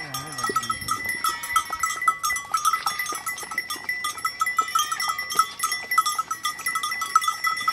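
Many bells on a flock of sheep and goats, ringing and clinking continuously with quick, irregular strikes.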